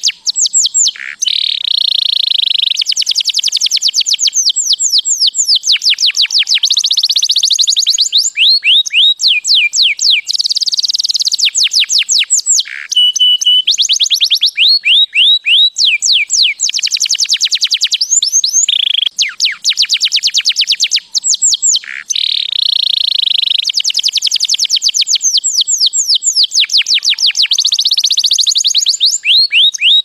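Canary singing a long, loud song of rapid trills, fast runs of falling notes between stretches of buzzier rolls, broken by a few brief pauses and a short held whistle about halfway through.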